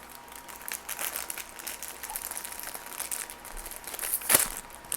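Funko mystery mini blind box and its wrapping being opened by hand: a run of light crinkling and crackling, with a louder sharp crackle about four seconds in.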